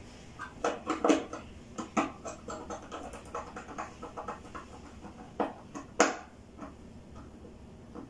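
Hands working a wire into a plastic fluorescent-lamp starter holder on a wiring board: irregular small clicks, taps and scratches, with a few sharper clicks and the loudest about six seconds in.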